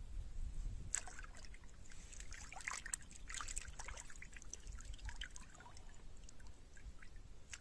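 Faint trickling and small splashes of shallow river water as hands dip in and hold a small fish, busiest from about a second in until near the end.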